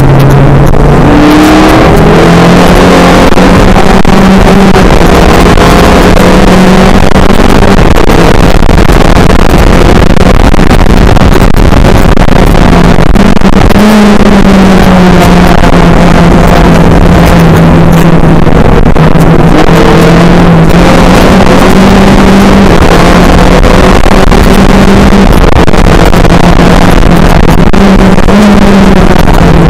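Skip Barber race car engine running hard at race speed, very loud throughout, its pitch stepping up and down several times as the driver shifts gears and lifts for corners.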